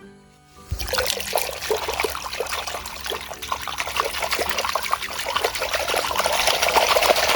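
Water running and splashing over a dirty toy as it is washed clean, starting about a second in.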